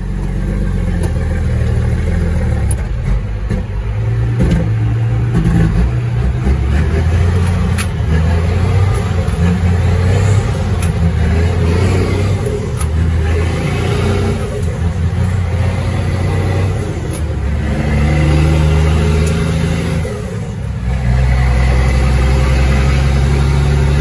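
Caterpillar 3306 inline-six diesel in a 1999 Ford Sterling truck, running loudly under load. Its note rises and drops several times, as on gear changes, with a short lull about twenty seconds in before it pulls again.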